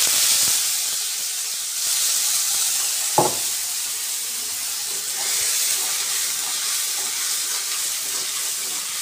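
Masala frying in hot oil in a kadhai, a steady high sizzle, with a single knock about three seconds in.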